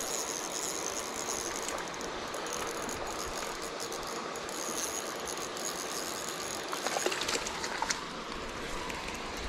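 Spinning reel being cranked to reel in a hooked trout: a fine, ratcheting whir that comes and goes, with a few sharper clicks about seven seconds in.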